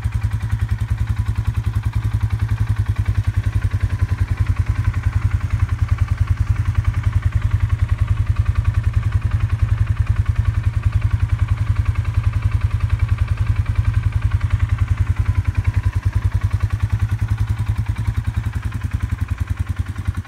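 Polaris Sportsman 570 ATV's single-cylinder four-stroke engine idling steadily, an even, fast run of exhaust beats.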